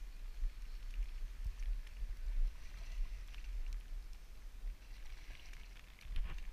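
Low, fluctuating wind rumble on the microphone, with scattered light clicks and ticks from the fly rod and reel being worked while a hooked trout is played; the clicks bunch up near the end.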